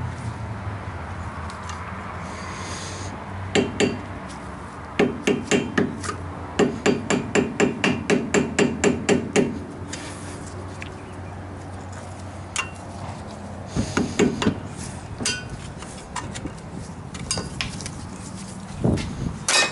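A hammer tapping a flat-blade screwdriver against a truck's front-hub bearing dust cap to work the cap loose from the hub. The taps come in runs of quick strikes, about three a second, with pauses between the runs.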